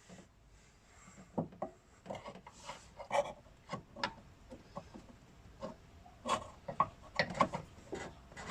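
Irregular clicks, knocks and scrapes of hand tools and metal parts being handled during engine-mount work.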